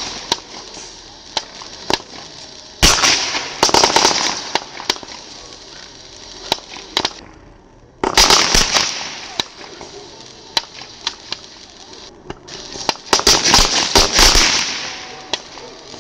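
Ground fireworks burning with a steady hiss. Three loud bursts of dense crackling come about three, eight and thirteen seconds in, with scattered sharp pops between them.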